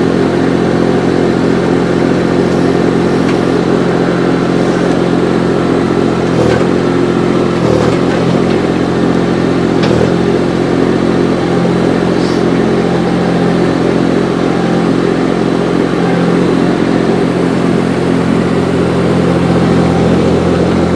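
Engine of a compact track loader running steadily up close. A few short clunks sound around the middle.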